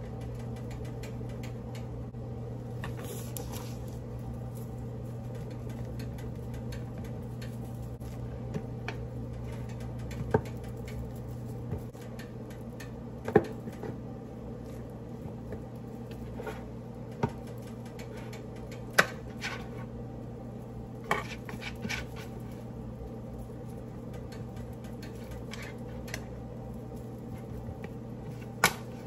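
Flour poured from a paper bag onto pork chops in a metal baking pan and worked over the meat by hand: soft rustling, with several sharp taps against the metal pan, over a steady low hum.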